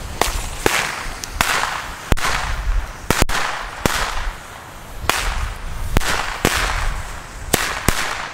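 Firecracker chain going off: single sharp bangs at uneven intervals, roughly one to two a second, each with a short echoing tail.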